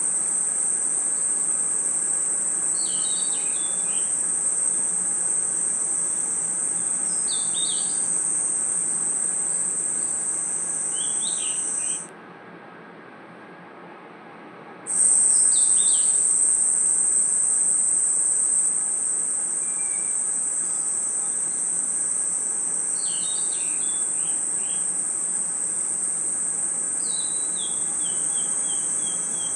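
Dense night chorus of crickets, a steady high-pitched trill that cuts off suddenly about twelve seconds in and comes back about three seconds later. Clusters of short falling chirps, bird-like calls, come every few seconds over the trill.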